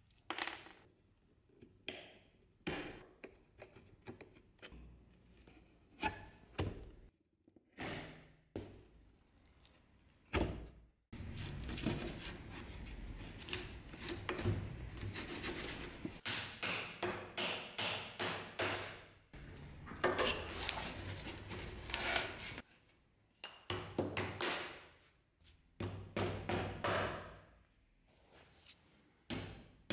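Wooden parts of an old table knocking and scraping as it is taken apart by hand. First come separate knocks, then about twelve seconds of quick, dense scraping strokes against the wooden frame, then more knocks near the end.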